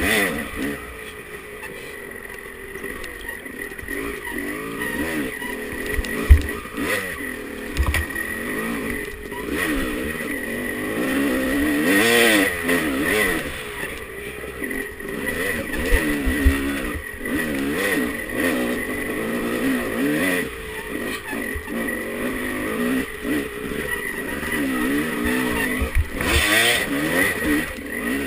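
Dirt bike engine revving up and down over and over as it is ridden along a rough trail, with a few sharp thumps over bumps.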